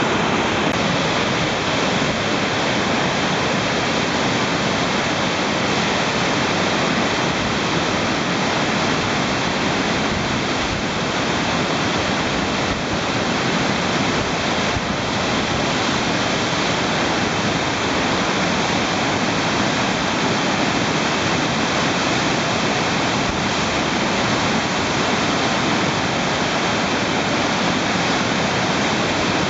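Steady rushing of whitewater rapids on a river in high-water flood.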